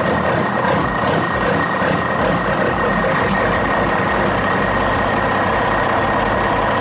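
Electric motor and gearbox of a toy RC rock crawler running steadily, a constant high whine over a gritty mechanical rattle, as it crawls over dry ground and up a log.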